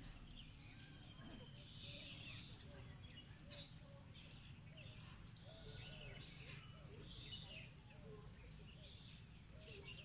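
Faint birdsong of small birds: short rising chirps repeat about once a second, a few louder than the rest, with some lower warbling notes, over a steady low rumble.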